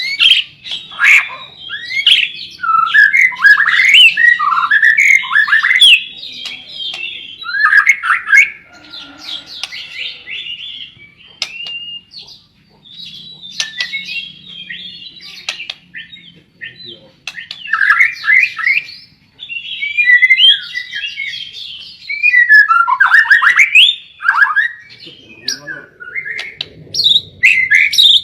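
A songbird singing a loud, varied song of fast whistled sweeps mixed with harsher squawking notes, delivered in bursts of a few seconds with short pauses between them.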